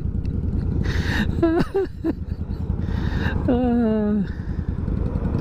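Suzuki C50 cruiser's V-twin engine and wind heard while riding, a steady low rumble. The rider's voice breaks in twice with short laughing sounds, the second a drawn-out falling 'oh'.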